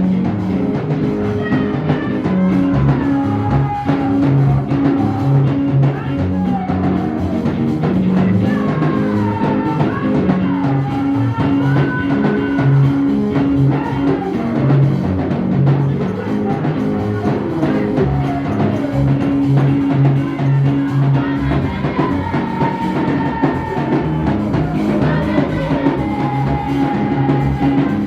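Music with a drum kit and a moving bass line under a gliding melodic lead, playing steadily throughout.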